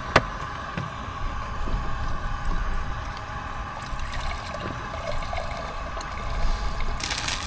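Strong wind buffeting the microphone as a steady low rumble under a constant hiss, with one sharp click just after the start and a louder hiss rising near the end.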